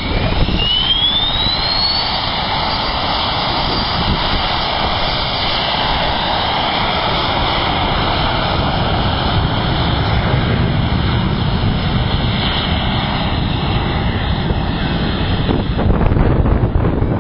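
Cessna Citation business jet's twin rear-mounted turbofans spooling up for takeoff: a whine rises steeply over the first two seconds, then gives way to a steady loud jet noise as the aircraft rolls away down the runway.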